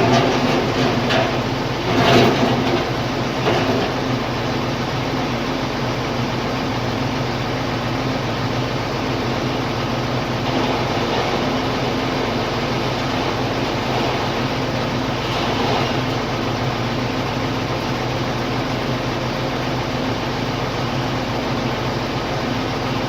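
An engine running steadily at an even speed, with a few sharp knocks in the first few seconds.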